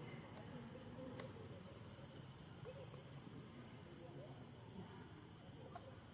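Steady high-pitched drone of insects in the surrounding woodland, with a faint click about a second in.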